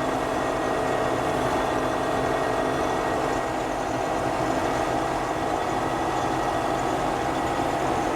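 Combine harvester running steadily while harvesting wheat: a constant engine and threshing-machinery drone with a few steady whining tones.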